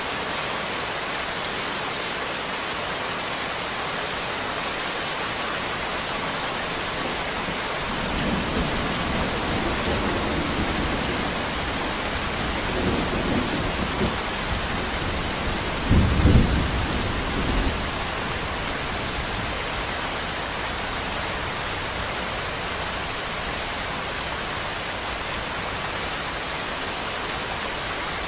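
Steady rainfall, a dense even hiss of drops. About eight seconds in, a low rumble rises under it, swells and breaks up, peaks as the loudest sound around sixteen seconds, then fades out a couple of seconds later.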